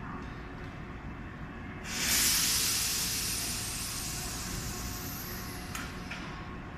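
Tobu 8000 series train 8111F letting off compressed air from its brakes as it readies to depart: a sudden loud hiss about two seconds in that fades away over several seconds, then two short clicks near the end, over a steady low rumble.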